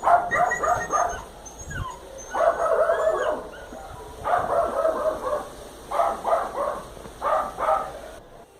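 A small dog barking in quick clusters of three or four high yaps, with two longer, drawn-out whining calls in between.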